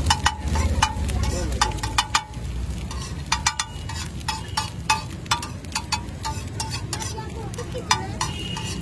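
Butter sizzling on a hot flat iron griddle under a stack of fried eggs, while a metal spatula scrapes and taps the griddle plate in repeated sharp, ringing clicks.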